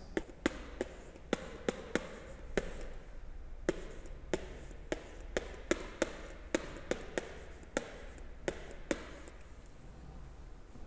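Stylus tapping and clicking on a tablet screen as words are handwritten: a run of sharp, irregular clicks that stops about nine seconds in.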